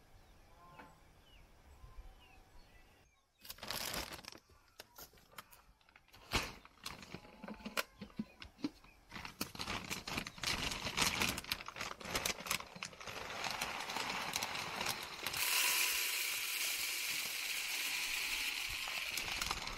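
Plastic feed sack rustling and crinkling among scattered clicks and knocks. About fifteen seconds in, chicken feed pours from the sack into a plastic poultry feeder as a steady rushing rattle that lasts to the end.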